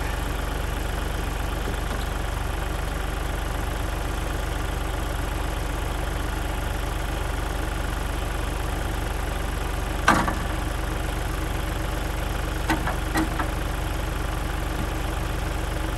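Tractor engine running steadily under a box blade on an icy driveway, with one sharp metallic clank about ten seconds in and two lighter knocks a few seconds later.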